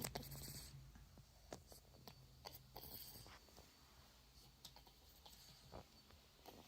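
Near silence: faint scattered clicks, with a low hum that fades out in the first second.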